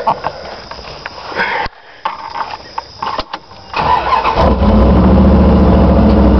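Scattered clicks and rustling, then about four seconds in the 1991 Dodge Power Ram 150's 318 V8 starts, catching within about half a second and settling into a steady idle.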